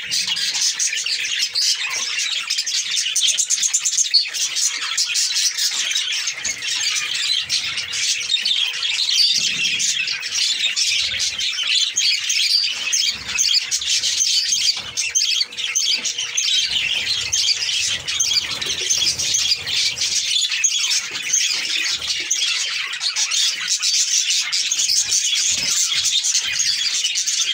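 A flock of budgerigars chattering and warbling together without pause, a dense mass of overlapping chirps and squawks.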